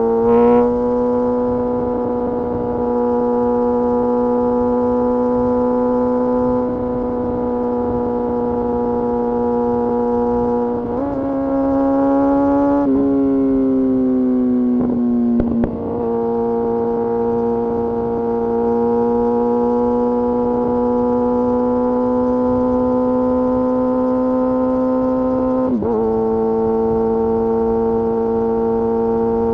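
Kawasaki Ninja ZX-6R's inline-four engine and exhaust under way, holding a steady high-revving note for long stretches. The pitch rises about a third of the way in, drops and falls away for a few seconds, then settles steady again, with a brief dip near the end.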